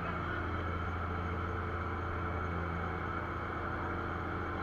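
Fishing boat's engine running steadily at an even, low pitch.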